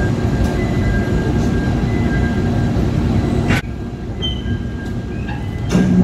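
Low, steady mechanical rumble of heavy vehicles or machinery at a truck loading area, with faint two-tone beeping repeating about once a second. About halfway through, a sharp click and the sound drops to a quieter background with a few short high squeaks, and a louder low hum comes in near the end.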